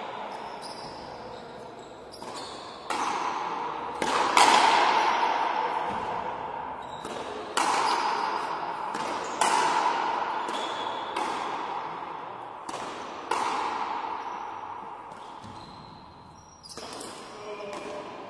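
A frontenis rally: the rubber ball is struck with rackets and smacks against the frontón wall in a series of sharp cracks, one every one to three seconds. Each crack rings out with a long echo in the large indoor court.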